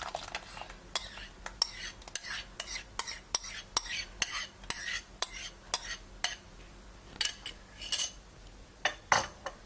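A spoon clinking and scraping against a cooking pan while curd is stirred into the thickened cucumber pachadi: quick clicks about two or three a second, pausing briefly a little past halfway before a few more.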